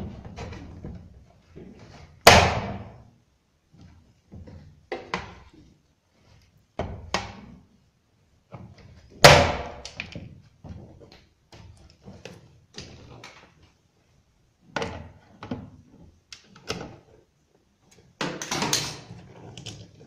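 Cutting pliers snipping wire and knocking against a washing machine's plastic control panel: two loud sharp knocks, about two and nine seconds in, among lighter clicks and rattles of tool and wire handling.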